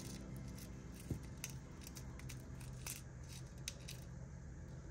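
Faint scattered clicks and light rustling of small plastic packets of rhinestone crystals being handled.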